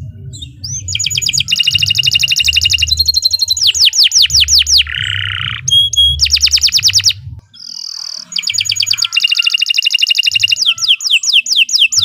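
Domestic canary singing a long, loud song: fast rolling trills and runs of quick descending whistled sweeps, with a harsh buzzy note about five seconds in. The song breaks off briefly about seven seconds in, then resumes with more trills and sweeps. A low rumble of background noise runs under the first half.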